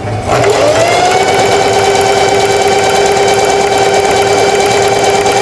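Singer 4423 Heavy Duty sewing machine stitching the long side of a four-step buttonhole. The motor winds up over the first second, then runs at a steady speed with an even hum.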